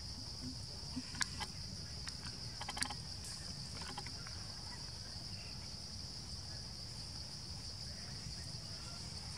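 A steady, high-pitched drone of insects chirring in the trees, with a few faint clicks in the first few seconds.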